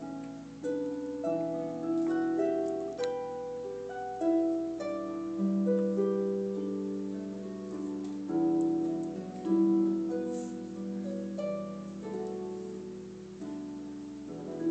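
Camac harp playing a slow traditional Scottish air solo: plucked melody notes ringing out over sustained lower notes and chords.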